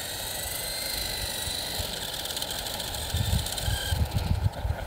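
Electric motors of a small coaxial RC helicopter (Nincoair AluTwin G 340) whining as the rotors spin up. The whine rises in pitch over the first second, holds at full throttle without the model lifting off, then stops about four seconds in. The battery is too flat to fly it. Some low thumps come near the end.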